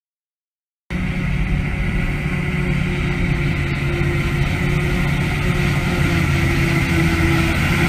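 Self-propelled forage harvester and a tractor running at work, picking up and chopping grass: a steady heavy engine and machinery drone that starts suddenly about a second in.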